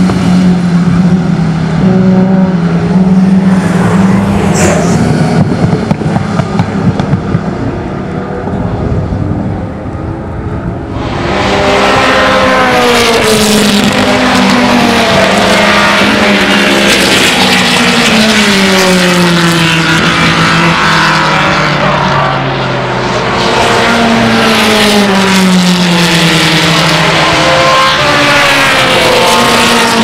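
Historic racing cars' engines at full throttle on a circuit, loud throughout. About eleven seconds in, the sound changes abruptly to several open-wheel single-seaters coming through, their engine notes sweeping down in pitch again and again.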